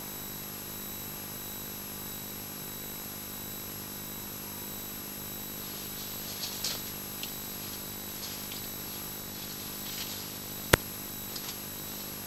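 Steady electrical hum and hiss from a night-vision garden camera, with faint rustling as a badger pushes through the plants, and a single sharp click about two-thirds of the way through.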